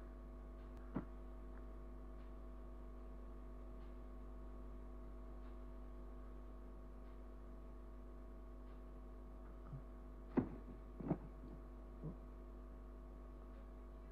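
A low, steady hum with a few short knocks, one about a second in and a cluster between ten and twelve seconds in.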